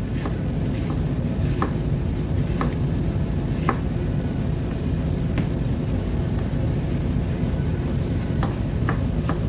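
Chef's knife slicing an onion on a plastic cutting board: scattered sharp knocks of the blade on the board, unevenly spaced, over a steady low rumble in the background.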